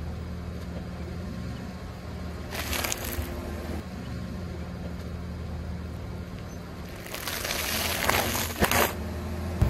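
Car engine idling steadily, then a car tyre rolling onto a plastic-wrapped snack packet and crushing it, with crinkling and crackling for about two seconds near the end. A brief rustling burst comes about three seconds in.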